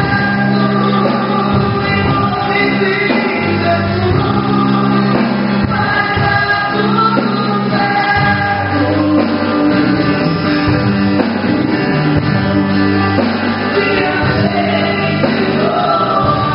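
Christian worship music: singers performing a gospel praise song over instrumental accompaniment, continuous and loud.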